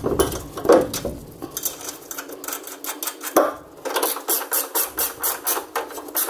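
Metal tools clinking against the front suspension, one sharp knock, then from about four seconds in a ratchet wrench cranked in quick, even strokes, about three a second, as the ball-joint nut on the lower control arm is turned.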